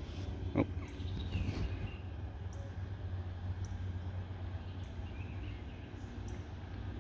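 Outdoor ambience: a steady low rumble with a few faint bird chirps, and a short high tick repeating about once a second.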